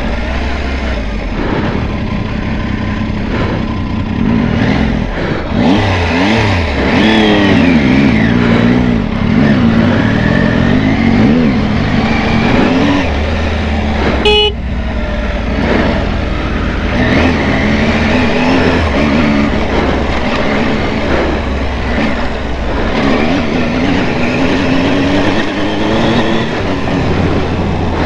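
Triumph Tiger adventure motorcycle's three-cylinder engine heard from on board while riding, its revs rising and falling with the throttle and gear changes over a steady rushing noise. A short click about halfway through.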